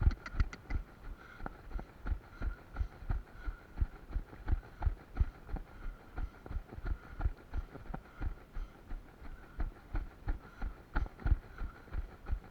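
Running footsteps thudding steadily at about three strides a second, picked up as dull thumps on a camera carried by the runner.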